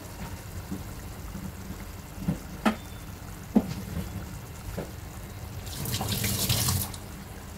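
Green chilli gravy simmering in a pan, bubbling with a few sharp pops. About six seconds in, a louder hissing rush lasts about a second.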